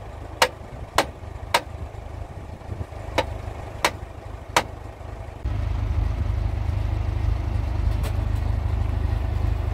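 Tractor engine running with a steady low rumble, under two runs of three sharp knocks, each about two-thirds of a second apart. About five and a half seconds in, the engine suddenly gets louder and holds there, and the knocks stop.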